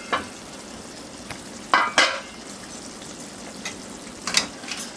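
Mutton liver sizzling in a pan as a spatula stirs and scrapes it, with a few sharp scraping strokes, two close together about two seconds in. The cooking water has boiled off and the liver is now frying dry.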